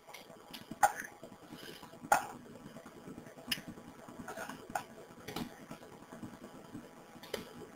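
Faint, scattered sharp clicks, about half a dozen, from a computer mouse being clicked while switching between windows on screen.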